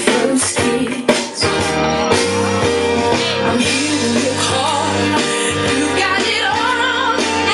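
A song with a singer playing for the dance, with a brief dip in loudness about a second in.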